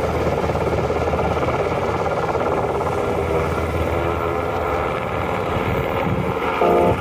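Sikorsky Black Hawk (Firehawk) helicopter's rotor and twin turboshaft engines running close by as it lifts off the hilltop and flies away: a steady, heavy roar. Music comes in just before the end.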